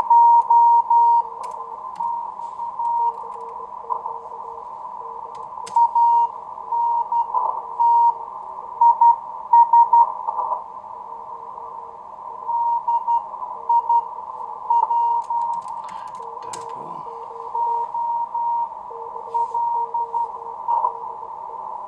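Morse code (CW) signals received on a homebuilt 1Watter QRP transceiver: two stations keying at once at different pitches, a higher tone and a lower one, the lower station interfering right next to the frequency. Beneath them is a steady band of receiver hiss narrowed by an audio filter.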